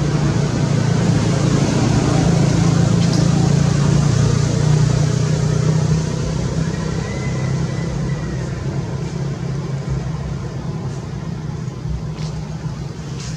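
A motor vehicle's engine humming steadily, louder in the first half and easing off after about six seconds, with a few faint clicks near the end.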